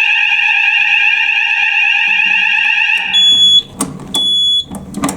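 Building fire alarm sounder going off in a steady, fast-pulsing tone during a fire alarm test, set off from a manual call point. It cuts off about three seconds in. Two short high beeps and a few knocks follow.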